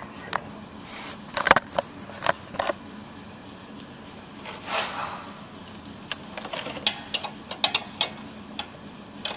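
Socket wrench and socket clinking against metal as they are worked onto a bolt: scattered sharp metal clicks, with a run of quick clicks in the last few seconds.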